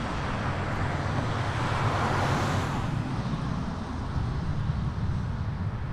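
Jet engines of a business jet climbing out after take-off, a steady rumbling roar. It swells about two seconds in, then slowly fades as the aircraft draws away.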